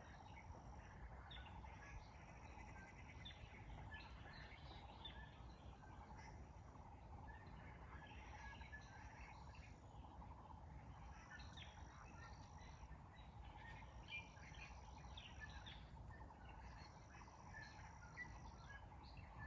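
Faint chorus of wild birds chirping and singing in a valley, many short calls overlapping, over a steady low background rumble. A thin, high, steady tone comes and goes every couple of seconds.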